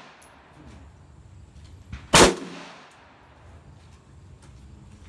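AR-15 rifle firing a single shot about two seconds in, its crack followed by an echo that fades over about a second; the next shot starts just at the end.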